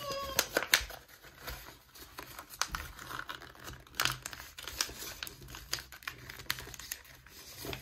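A sheet of letter-size paper being folded and creased by hand against a wooden table, making irregular crinkling and rustling with small sharp ticks. The louder ticks come just after the start and again about four seconds in.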